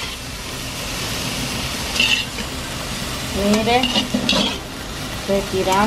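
Shrimp sizzling in hot oil in a metal wok while a metal spoon scrapes along the pan scooping them out, with a clink against the metal about two seconds in.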